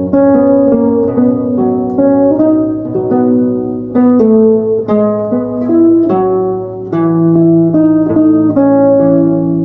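Solo guitar playing a slow, melodic instrumental arrangement: a plucked melody of ringing single notes over sustained bass notes.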